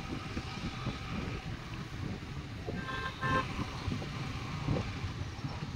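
Riding a scooter in city traffic: a steady low rumble of wind and road noise, with a vehicle horn honking in two short blasts about three seconds in.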